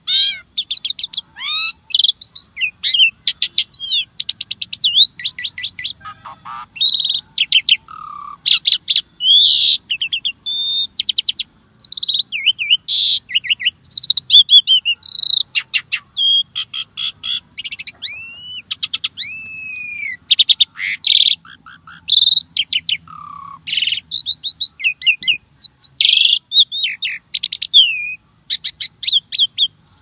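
A jalak starling singing a fast, varied song of whistles sliding up and down, sharp clicks and buzzy notes, with hardly a pause.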